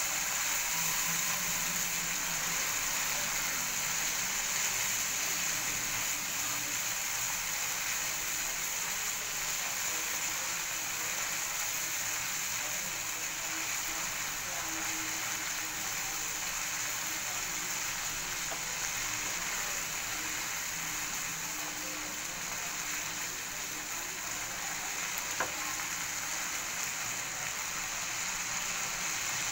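Masala gravy with coconut milk sizzling steadily in a frying pan as it is stirred with a silicone spatula, with a single light click near the end.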